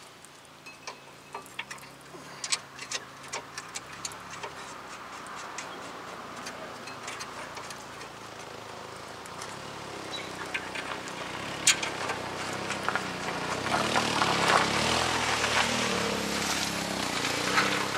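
Scattered light metallic clicks from tools and bolts as a caliper bracket is bolted on. Under them a passing vehicle's engine grows steadily louder through the second half.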